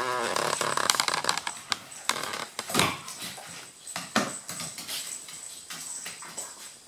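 Maltese and golden retriever play-wrestling: a short rough growl at the start, then scuffling with sharp knocks and scrapes on the wooden floor, dying away toward the end.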